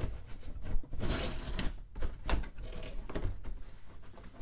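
Cardboard socket-set box being handled and opened, with irregular rustling, scrapes and light knocks.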